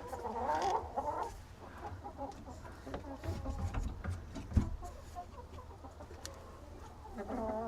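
Hens clucking in the coop, with a drawn-out call in the first second and another near the end, and a few light knocks in between.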